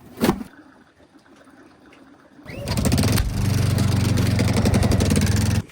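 Small portable generator engine starting about two and a half seconds in, then running steadily with a fast, even chug. The sound cuts off suddenly near the end.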